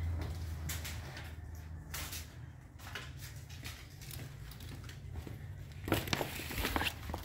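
Handling and movement noises in a small room: cloth rustling, a plastic basin being picked up, scattered light knocks and footsteps, over a low steady hum. A louder flurry of rustles and knocks comes near the end.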